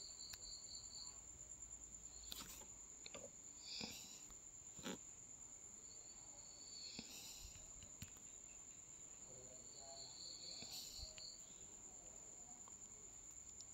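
Near silence: a faint steady high-pitched tone, with faint chirping trills near the start and again about ten seconds in, and a few soft clicks.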